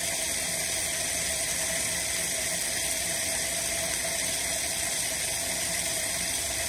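Steady rush of water running out of an open hose bib while the well pump is off, draining the system's pressure down toward the pump's 30 psi cut-in point.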